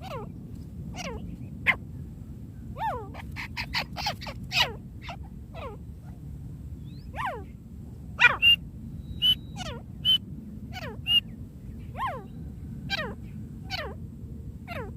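Francolin (teetar) calls: sharp notes, each falling steeply in pitch, repeated about once a second. A quick run of rapid notes comes about three to five seconds in, and several short high whistled notes come in the middle. A steady low hiss runs underneath.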